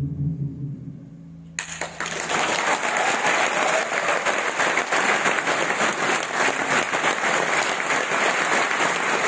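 The last held low note of the song dies away, and about a second and a half in a large audience breaks into applause that carries on steadily.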